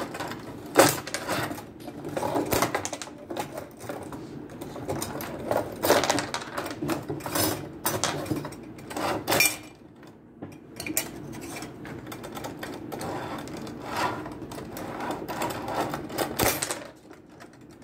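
1962 Munro H-29 table hockey game in play: the rods sliding and turning in their slots, the players spinning, and the puck clacking off the sticks and boards in an irregular clatter of clicks and knocks.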